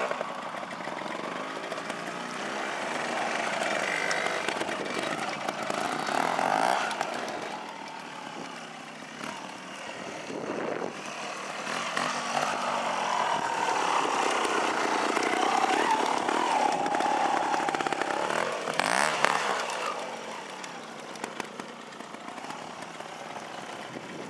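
Small trials motorcycle engine revving up and down as it is ridden slowly over obstacles, pitch rising and falling with the throttle and loudest in the middle stretch. A short sharp knock about three-quarters of the way through.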